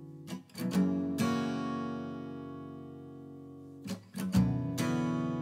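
Background music: an acoustic guitar strumming chords, with two groups of strums about four seconds apart that ring out and slowly fade.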